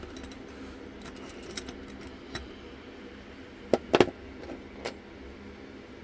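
Metallic clicks and knocks from a euro profile lock cylinder being handled and taken out of a small bench vise: a few light ticks, then a cluster of loud sharp knocks about four seconds in and one more shortly after.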